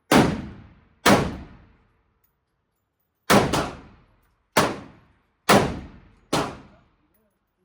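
Seven gunshots from an AR-style rifle fired in an uneven string, two in quick succession about three seconds in, each shot with a short fading tail.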